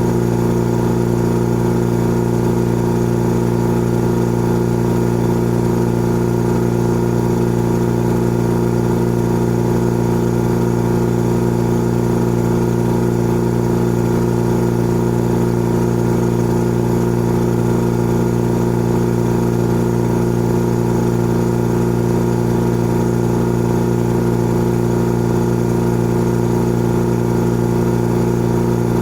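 Old electric air compressor running steadily: a constant motor hum made of several steady tones, with no change in pitch or level.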